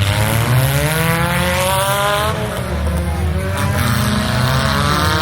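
Demolition derby car engine revving hard. It climbs in pitch for about two seconds, drops, then climbs again near the end.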